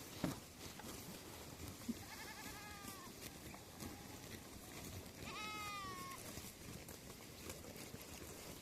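Sheep bleating twice: a faint wavering bleat about two seconds in and a louder one a little after five seconds. Two sharp knocks come in the first two seconds.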